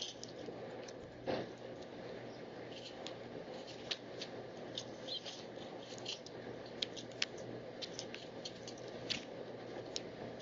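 Wild birds making many short, irregular high chips and ticks over a steady low hum.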